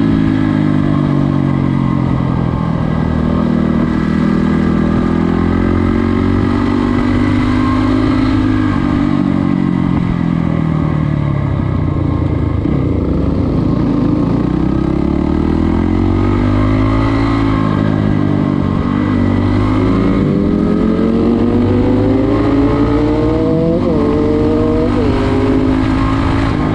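A trail motorcycle's engine, heard from the bike itself while riding. The engine note rises and falls with the throttle, sinks low about halfway through as the bike slows, then climbs repeatedly near the end, with quick drops in pitch as it shifts up.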